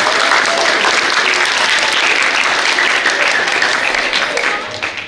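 Audience of students and families applauding, dense continuous clapping that tapers off near the end.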